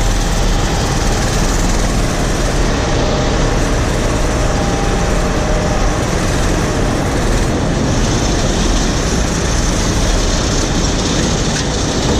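Combine harvester running: the loud, steady noise of its engine and machinery, with no break.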